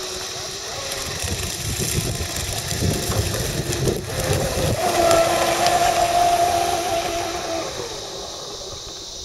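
Engine of a quarter-scale radio-controlled hydroplane running at speed across the water: a steady high whine that swells about halfway through, peaks, then fades away near the end. Wind rumbles on the microphone in the first half.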